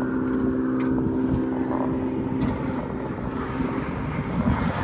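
A passing motor vehicle's engine, a steady pitched hum that fades about halfway through, over the low rumble of road traffic.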